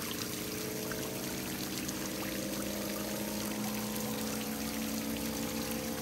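Small rock waterfall splashing steadily into a garden pond.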